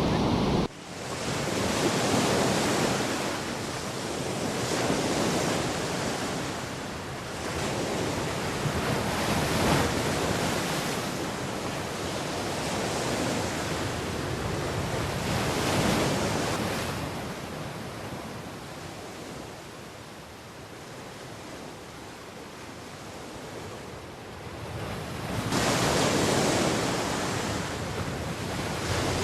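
Storm surf on the Black Sea breaking on a sandy beach: a steady wash of noise that swells as each wave breaks and ebbs between them, every few seconds, with the biggest breakers about 2, 10, 16 and 26 seconds in.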